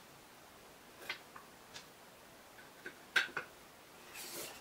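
A few light clicks and taps from a small pine board and its screws being handled on a wooden tabletop, the sharpest about three seconds in, then a brief scraping rustle near the end as the board is pressed and shifted.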